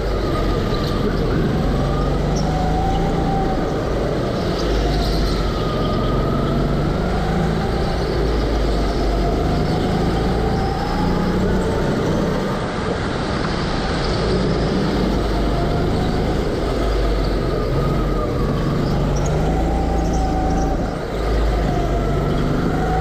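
Go-kart engine running under the driver, its pitch rising and falling again and again as the kart speeds up on the straights and slows for the corners, with a steady rumble and rush of air behind it.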